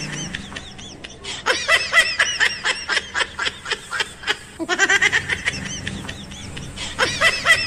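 High-pitched, squeaky cartoon-style laughter sound effect: rapid 'ha-ha-ha' chirps, several a second, in runs broken by short pauses about one second and four and a half seconds in.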